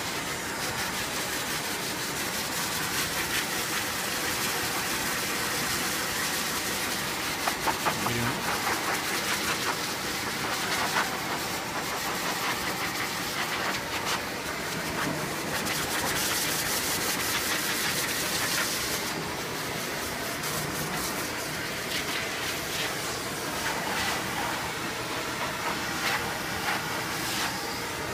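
High-velocity pet dryer blowing a steady rush of air through its hose nozzle, the sound changing slightly as the nozzle is worked through a dog's wet coat.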